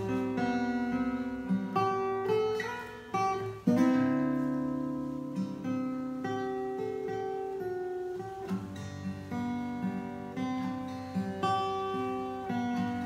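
Acoustic guitar playing the introduction to a slow song, picked chords and single notes left to ring, with a stronger chord about three and a half seconds in.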